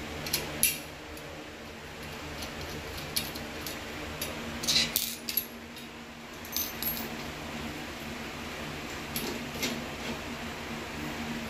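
Light metallic clicks and clinks of hex keys and a steel bracket being worked on a stainless steel shower-door rail tube, scattered, with a quick cluster about halfway through, over a steady low hum.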